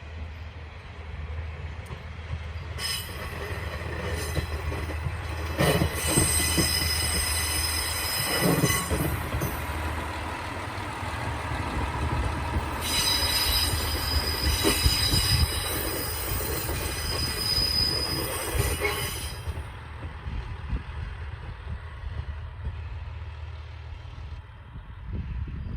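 JR Shikoku KiHa 54 diesel railcar running past, its engine a steady low hum, with its wheels squealing high-pitched for much of the pass from about three seconds in, plus a few knocks around six and eight seconds.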